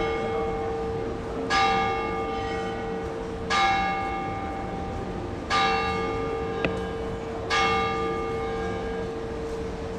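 Church bell tolling: struck four times, about two seconds apart, each stroke ringing on and fading, over a steady lower hum. A short sharp click falls between the third and fourth strokes.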